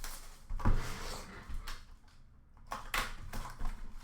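Trading-card boxes and packs being handled on a table: rustling and light knocks, the loudest knock under a second in.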